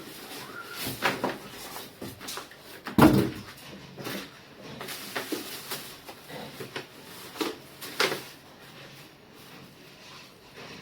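Irregular knocks, taps and rustling of air-conditioner parts being handled, with one louder thump about three seconds in.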